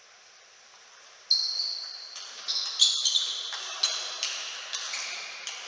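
Table tennis rally: the plastic ball clicks sharply off the rubber bats and the table in quick alternation, about two hits a second, starting a little over a second in. Each click rings briefly in the hall.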